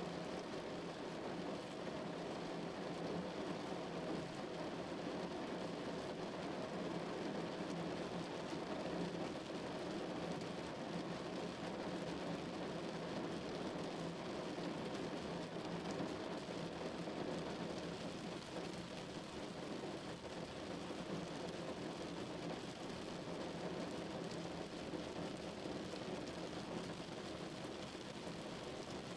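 Heavy rain drumming steadily on a car's roof and body, a dense even patter without let-up.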